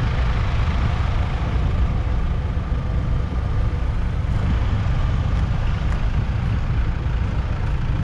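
Large diesel tractor engine idling steadily.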